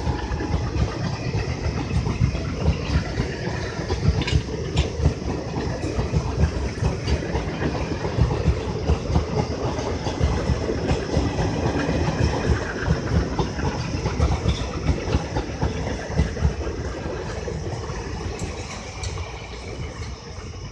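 Passenger coaches of an Indian Railways express train rolling past at close range: a steady rumble of wheels on rails with irregular knocks. It fades over the last few seconds as the train moves away.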